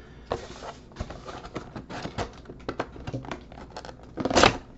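Hands handling a cardboard trading-card hobby box: scattered light taps and scrapes, then a louder rustling scrape near the end.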